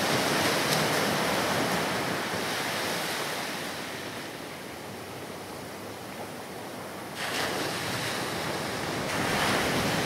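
Rough sea surf surging and breaking, with wind. It fades through the middle and comes back up in two steps, about seven and nine seconds in.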